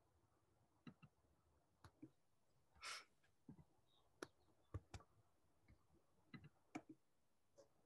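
Near silence broken by faint computer mouse clicks, about a dozen at irregular intervals, with a brief soft hiss about three seconds in.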